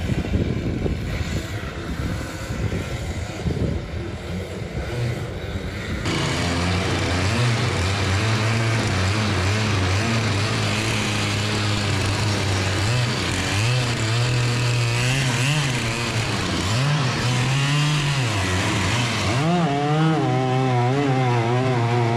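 Stihl 088 two-stroke chainsaw engine driving a small longtail boat's propeller at speed. It is heard faint and rough over the water for the first six seconds, then loud and close from on board, running hard with its pitch dipping and picking up again several times.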